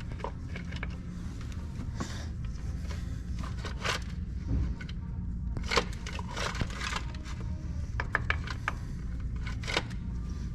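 Metal clicks and short scrapes of a timing chain and hand tools being worked into place on an engine, irregular and scattered, over a steady low hum.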